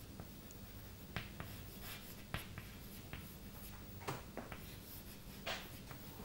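Chalk writing on a blackboard: short scratches and taps of the chalk as letters are formed, a few seconds apart, over a low steady hum.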